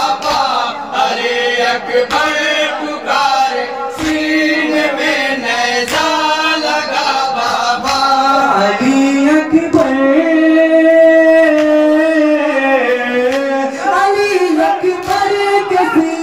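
Men chanting a noha, a Shia Muharram lament, into microphones, drawing the words out into long held notes. Sharp slaps, taken for hands striking chests in matam, mark a slow beat about every two seconds.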